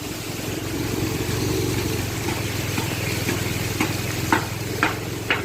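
A small engine running steadily under a hiss, with a few short clicks near the end.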